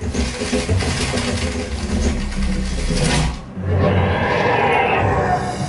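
Film soundtrack playing through a TV: loud, rumbling sound effects with a heavy low end, dipping briefly a little past halfway before building again.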